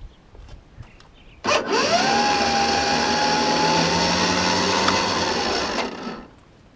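Pneumatic grease gun running for about four seconds as it pumps grease into a mower's grease fitting: a whine rises as it starts, holds steady over a hiss, then stops.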